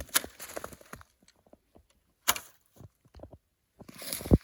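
Handling noise: scattered light clicks and knocks, a sharper click about two seconds in, and a dull thump near the end.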